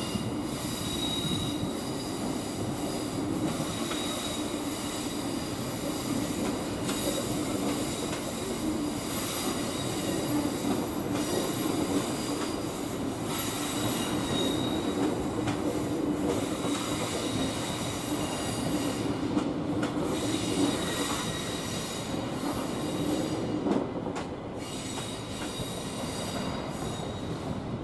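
Queensland Rail suburban train's wheels squealing on curved track: a steady, high-pitched squeal of several held tones over the rumble of the train. It is loud enough that passengers on the platforms put their fingers in their ears.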